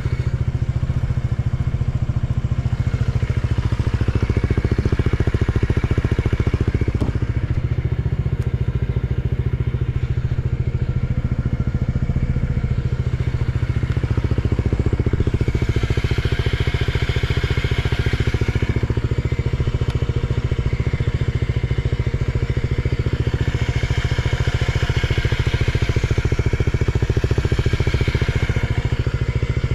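Honda PCX125 scooter's single-cylinder four-stroke engine running steadily through an aftermarket carbon and stainless full exhaust, with no abnormal noises.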